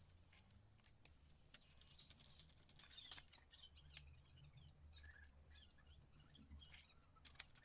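Near silence: room tone with a few faint clicks and, about a second in, a faint high wavering whistle lasting about a second.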